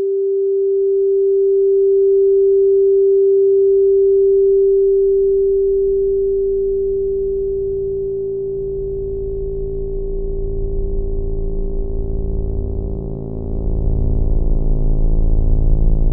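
A steady electronic sine tone, held at one pitch. Beneath it a low, throbbing drone swells in from about halfway and grows louder near the end.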